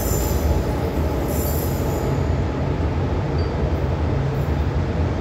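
Daewoo diesel railcar train running along the elevated tracks and moving away, with a steady low rumble. A high hiss from the wheels and rails fades out about two seconds in.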